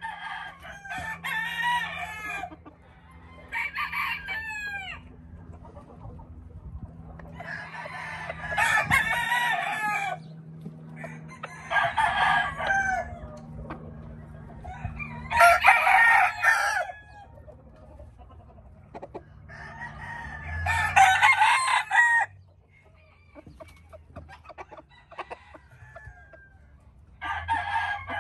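Gamefowl roosters crowing: about seven crows a few seconds apart, each about two seconds long.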